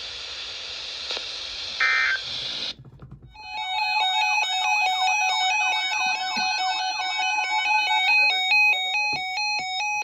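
Handheld weather alert radio: receiver hiss with a brief chirp, then, after a short gap, its electronic alert alarm, a fast pattern of beeps stepping between several pitches, which sounds as a new warning comes in.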